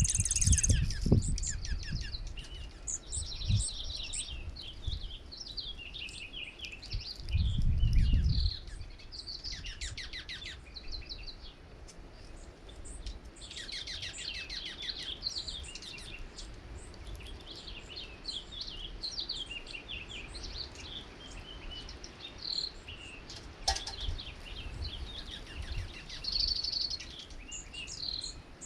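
A flock of small songbirds chirping and calling, many short chirps and quick trills overlapping. Low rumbles come in about a second in and again around eight seconds in.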